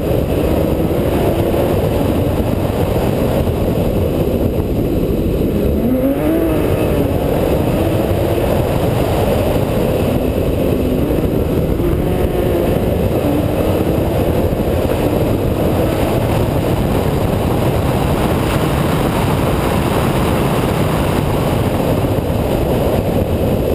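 BMW E21 rally car driven at speed, heard from a camera on its bonnet: a loud, steady rush of wind and road noise over the engine, whose note rises and falls with throttle and gear changes, dropping and climbing again about six seconds in.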